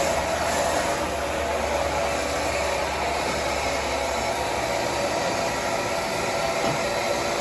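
Homemade band sawmill running, a steady dense machine noise with an even hum, its low rumble easing about two-thirds of the way through.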